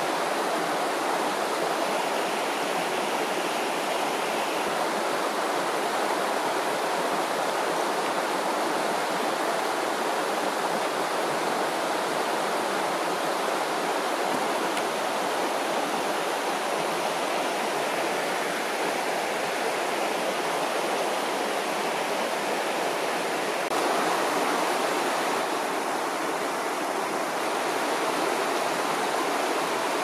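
Shallow river flowing over rocks: a steady, unbroken rush of water.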